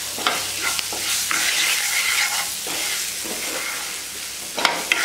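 Spatula stirring and scraping a tempering of mustard seeds, urad dal and spices around a nonstick frying pan, the oil still sizzling steadily in the hot pan with the gas turned off. A sharper scrape or knock of the spatula on the pan comes near the end.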